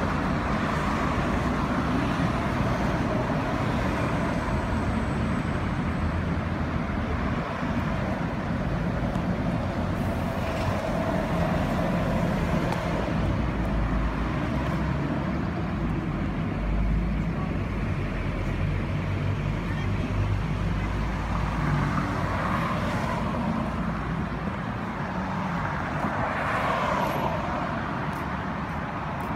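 Steady city road traffic: car engines and tyres passing, with a continuous low rumble.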